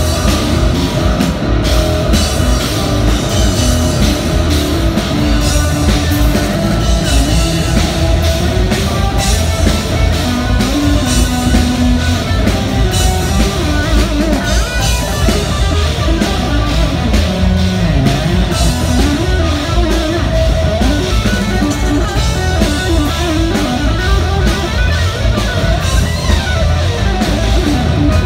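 A loud live hard-rock trio in an instrumental passage: an electric guitar plays lead lines over electric bass and a drum kit, with bending, gliding guitar notes.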